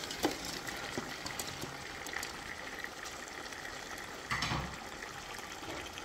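Hot masala curry base bubbling wetly in a steel pot as raw chicken pieces are tipped in from a bowl, with a few soft clicks near the start and a brief louder burst about four seconds in.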